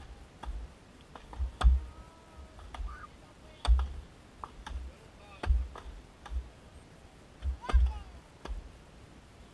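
Axe blows chopping into a 12-inch aspen log in an underhand chop, a heavy strike about every two seconds with lighter knocks in between.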